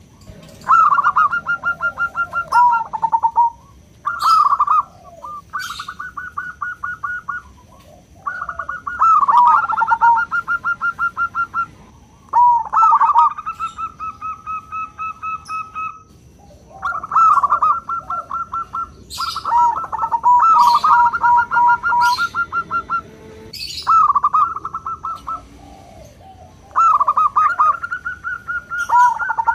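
Zebra dove (perkutut) singing its rapid, pulsed cooing song in repeated phrases a few seconds long, with short pauses between.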